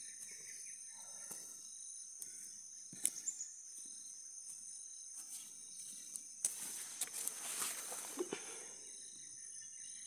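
Steady high-pitched insect chorus, with several pitches held at once, at a forest edge. A few sharp clicks come about three seconds in, and a rustling noise rises for a couple of seconds past the middle.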